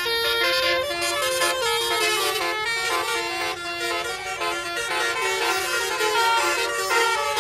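A tour coach's multi-trumpet musical air horn (a 'telolet' or basuri horn) playing a melody, its notes stepping up and down in quick succession.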